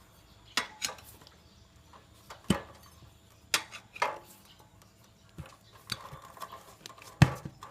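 Steel tyre levers and hand tools clinking and knocking against a metal wheel rim, in a series of separate sharp clanks with quiet between them. The loudest comes near the end.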